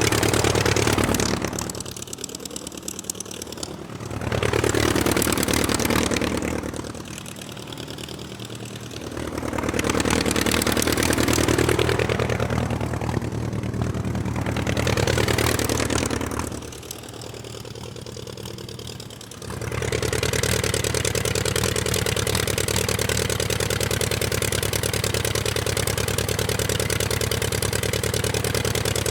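Aircraft engine running. Three times it drops in pitch and loudness and then sweeps back up, as if throttled back and opened again, then it runs steadily through the last third.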